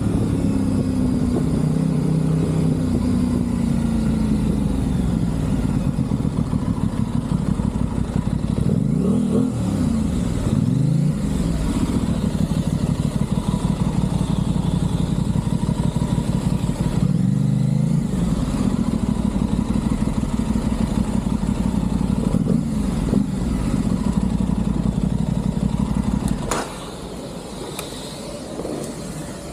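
Aprilia Tuono 660's parallel-twin engine running under way, its note sliding up and down as it revs and changes gear, around ten seconds in and again around seventeen seconds in. About 26 seconds in the sound drops suddenly to a much quieter level.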